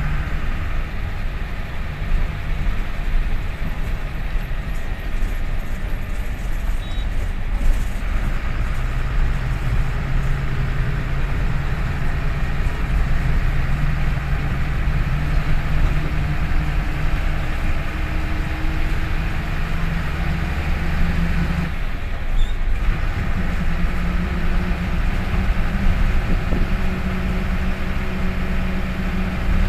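Diesel engine of a KSRTC bus running as the bus drives along, heard from inside the driver's cab beside the engine cover. The engine note is steady with shifts in pitch, and it drops out briefly about two-thirds of the way through before picking up again.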